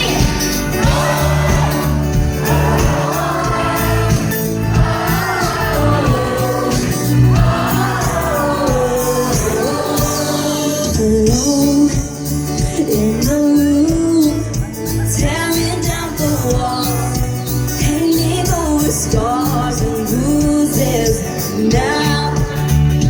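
Live pop song played loud through a concert sound system: a lead vocal sung over a full band, with a steady beat.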